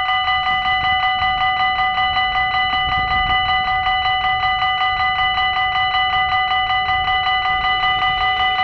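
Dutch level crossing warning bell ringing steadily with rapid, evenly spaced strikes, about four to five a second, sounding while the red lights flash to warn of an approaching train.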